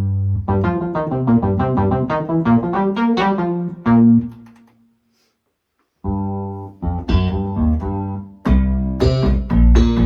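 Yamaha QS300 synthesizer playing its stock preset sounds: a fast run of notes ends on a held note that fades out about halfway through, then after a second of silence a different preset comes in with louder, repeated notes.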